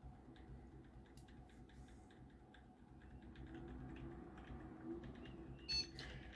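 Computer keyboard's Delete key tapped quickly over and over, faint clicks a few times a second, to catch the BIOS prompt during boot. A low hum comes in about halfway, and there is one sharper click near the end.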